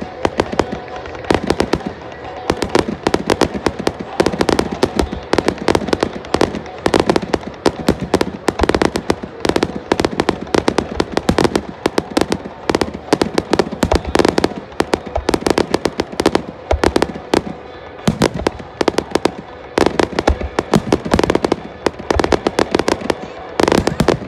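Fireworks launching and bursting in a rapid, unbroken barrage of bangs and crackles, several reports a second.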